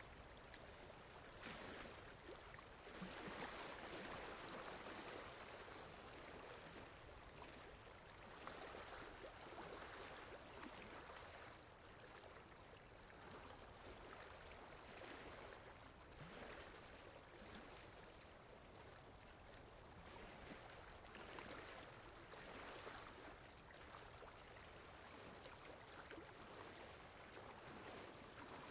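Steady rainfall, a soft even patter that swells and eases gently every few seconds.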